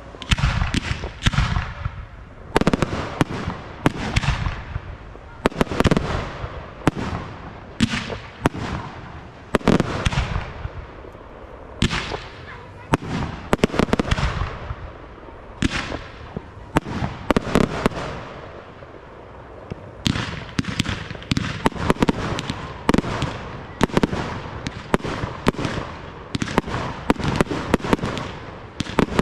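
Aerial firework shells bursting in quick succession, a sharp bang every second or so, each trailing off. After a short lull about two-thirds of the way through, a dense barrage of rapid pops follows.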